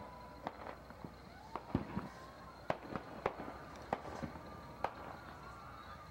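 Fireworks going off: a string of irregular sharp bangs and pops, about ten in six seconds.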